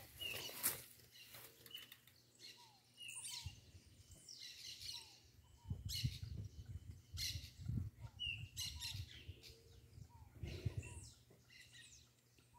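Guinea hen (helmeted guinea fowl) calling over and over with short harsh calls about every second or so, among smaller chirps. A hen calling like this is taken as the sign that she has a nest of eggs there.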